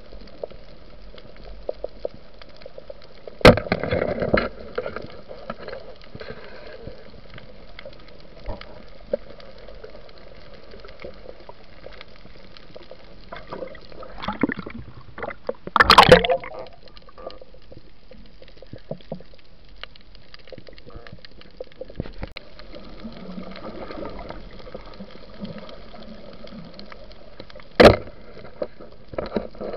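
Muffled underwater ambience on a night reef dive: a steady low hiss with small crackles, broken by a sharp knock about three seconds in, a loud rush of noise lasting about a second around the middle, and another sharp knock near the end.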